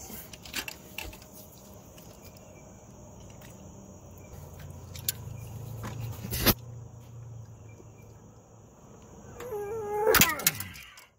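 Socket and extension straining on a seized steel exhaust manifold bolt on a GM 5.3 V8: metallic clicks and knocks, a sharp crack about six and a half seconds in, then near the end a short squeal sliding down in pitch and a loud snap as the bolt breaks off.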